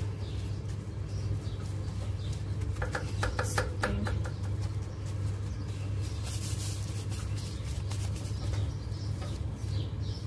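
Gloved hand tossing and mixing rice grains with grated carrots in a large pot: rustling of the grains, with a quick run of clicks about three seconds in. A steady low hum runs underneath.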